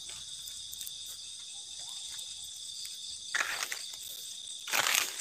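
Night insects chirring in a steady high-pitched chorus, with two short rustles of leaves and grass, one a little past three seconds in and a louder one near the end.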